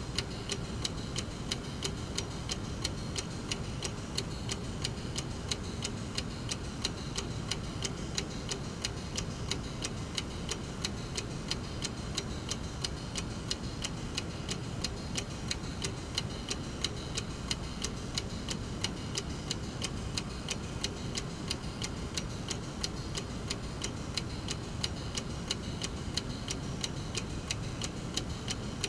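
Brass mechanical clock movement ticking steadily, its escapement giving a regular, even run of sharp ticks.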